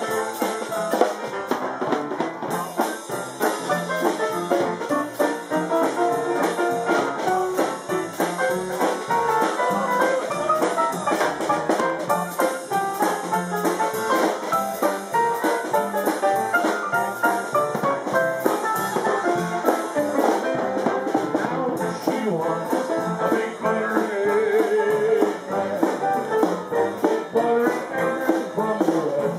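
Dixieland jazz band playing live, with a continuous stream of notes and no pause.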